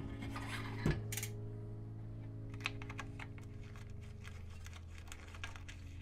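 Light, irregular clicking and ticking from handling a bicycle wheel and its valve, with a single thump about a second in, over soft background music with held chords.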